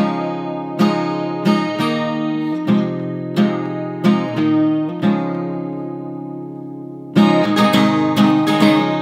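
Background music: acoustic guitar strumming chords. Near the middle one chord is left to ring out and fade for about two seconds, then busier strumming picks up again.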